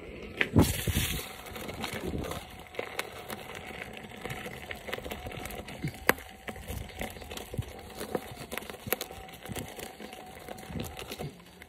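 Electric unicycle tyre rolling along a dirt forest trail, crackling and crunching over dry leaves, twigs and grit, with a few sharp knocks from bumps, the loudest about half a second in. A faint steady hum runs underneath.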